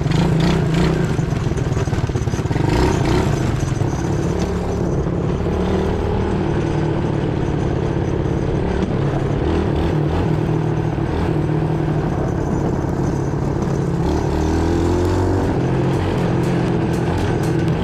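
Quad bike (ATV) engine running while it is ridden along a track, its pitch rising and falling with the throttle.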